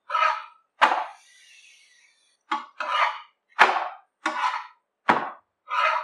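Metal spatula scraping and tapping on a tawa as a paratha is pressed and turned on it: about eight short, separate scrapes, roughly half a second apart.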